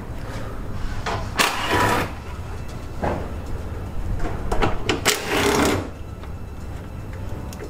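Hand tools working on the bolts of a car's upper radiator support: ratchet-like clicking, with two longer rasping bursts, one about a second and a half in and one about five seconds in.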